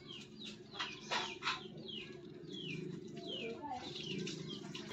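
Birds chirping: a string of short chirps, each falling in pitch, repeating every half second or so over a low steady hum. Two brief sharp crackles stand out about a second and a half in.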